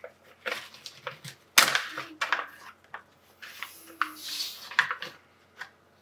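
A packet of dark chocolate bark being opened and a piece taken out: rustling and clicking, with one sharp crack about a second and a half in and a crinkling patch near the middle.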